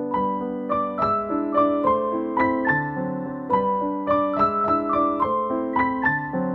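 Background piano music: a gentle melody of single struck notes, about three a second, over soft lower chords.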